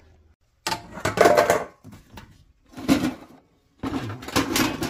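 Three bursts of household handling noise, clattering and rustling, the last as a hand rummages in a metal bucket and pulls out a cord wound on a cardboard tube.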